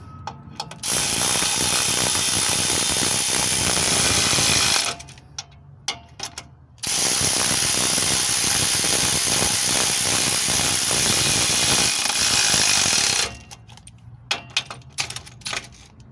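Electric ratchet wrench running in two long bursts, about four and six seconds long, tightening the lower bolts of a front shock absorber, with a few short clicks between and after the bursts.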